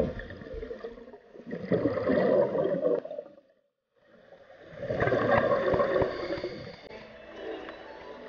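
Scuba regulator exhaust: exhaled air bubbling out underwater in two long bursts, the first about a second and a half in and the second from about four and a half seconds in, with fainter bubbling near the end.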